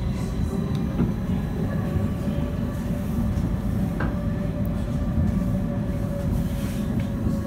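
Inside a CAF Urbos 3 tram running along the track: a steady low rumble of wheels on rail with a steady hum over it, and light clicks about one and four seconds in.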